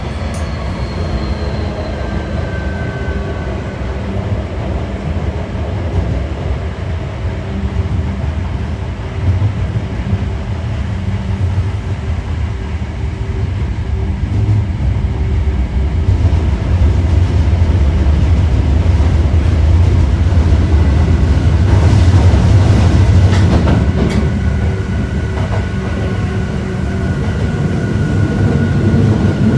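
Osaka Metro 1300 series subway train with Toyo IGBT inverter drive running at speed, heard from inside the car: a heavy rumble from motors and wheels with a few rail clicks. A falling inverter whine fades out near the start, and a steady inverter tone comes back in about 24 seconds in.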